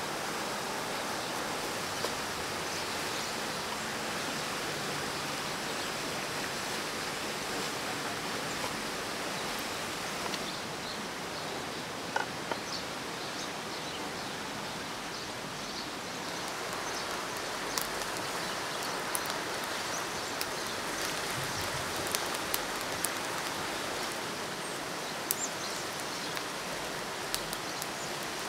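Steady outdoor background hiss from trees and open air, with scattered sharp clicks of a large chef's knife tapping and cutting on a wooden board, mostly in the second half.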